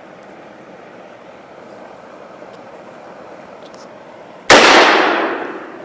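A single loud handgun shot, apparently from a revolver, about four and a half seconds in, with a long echo dying away over more than a second.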